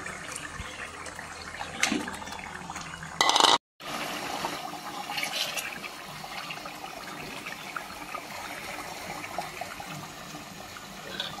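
Chicken pieces being stirred through thick rendang gravy of spice paste and coconut milk with a wooden spatula in a pot: wet, sloshing liquid sounds with small knocks. A short loud burst is followed by a sudden brief break about three and a half seconds in.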